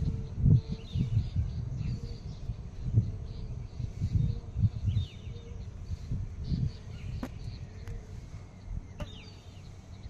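Small birds chirping in short notes and brief falling calls, over irregular low bumps and rumble on the phone microphone.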